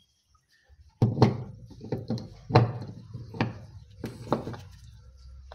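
Metal gear parts of a dismantled electric winch being handled and knocked against the workbench: about six sharp clunks spread over a few seconds, starting about a second in.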